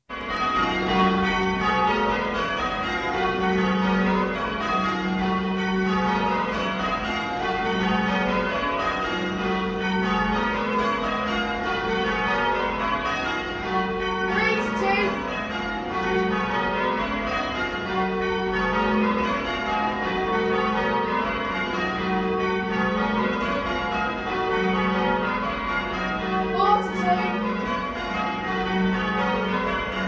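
Tower bells being change-rung, struck one after another in steady, evenly spaced rows by ringers pulling the bell ropes, heard from inside the ringing chamber.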